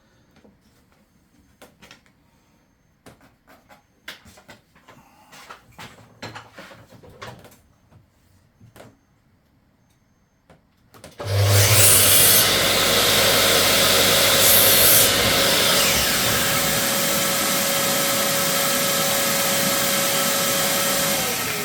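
Light handling clicks and knocks, then about halfway through an electric power saw starts and runs loudly for about ten seconds, with two brief harsher stretches as it cuts through wood; near the end its motor winds down with a falling whine.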